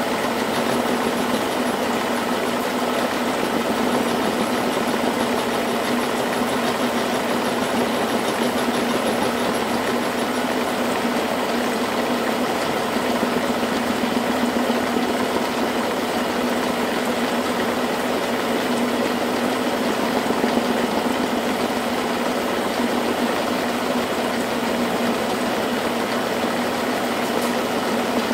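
Old manual milling machine running steadily, with a constant motor-and-drive hum while its cutter mills a metal workpiece.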